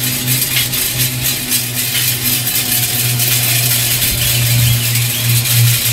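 Stainless-steel pinwheels spinning and rattling in the wind, with many quick clicks, over a steady low hum.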